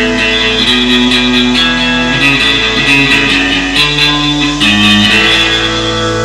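Recorded rockabilly music: an electric guitar playing a melody of held notes over a bass line.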